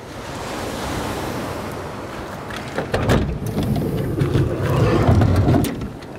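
Surf and wind on the shore. About three seconds in come several sharp clicks and a low rumble, as a van's sliding side door is opened; this is the loudest part, and it stops just before the end.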